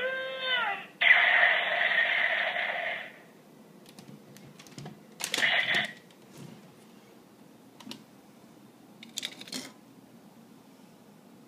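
Electronic sound effects from a GabuRevolver toy gun's small speaker: a run of quick falling tones, then a loud effect lasting about two seconds. After that come plastic clicks from handling the toy, a short loud burst about five seconds in, and more clicks near nine seconds.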